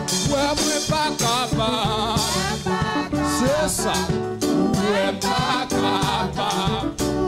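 A man singing a gospel worship song into a microphone, his voice held in long wavering notes, over an amplified instrumental accompaniment with a steady beat.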